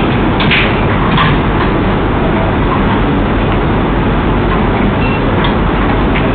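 Steady, loud hiss and rumble of room noise picked up by a surveillance camera's microphone, with a few faint knocks about half a second and a second in.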